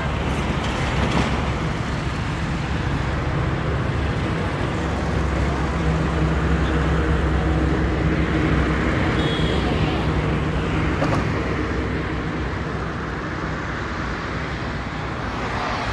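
Motor vehicle engine running steadily with road noise: a continuous low hum that is strongest from about five to ten seconds in.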